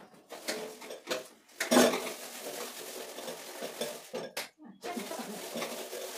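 Hand scrubbing of a wet, soapy stainless-steel gas stove top with a scrubber pad: a continuous scratchy rubbing on sheet metal, with one loud metallic knock about two seconds in and a brief pause past the middle.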